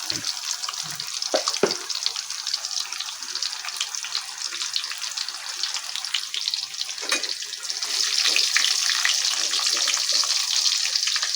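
Salted fish sizzling and crackling as it fries in hot oil, getting louder about eight seconds in, with a few soft knocks.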